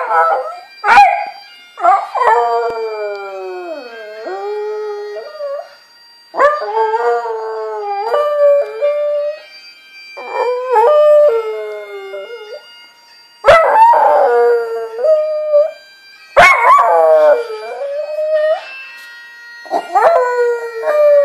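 A small dog howling along to bagpipe music: about seven drawn-out howls with short breaks between them, each starting high and sliding down in pitch. Thin, steady bagpipe tones sound faintly underneath.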